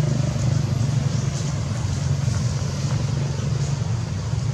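A steady low engine hum with no change in pitch.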